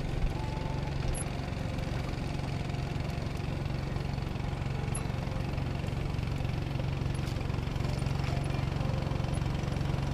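Small boat's engine running steadily with an even low hum as the boat travels along.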